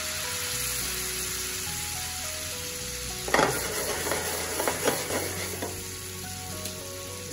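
Salted butter foaming and sizzling in a skillet as it browns into beurre noisette. About three seconds in, the pan clanks and scrapes several times on the cast-iron burner grate as it is swirled, over about two seconds.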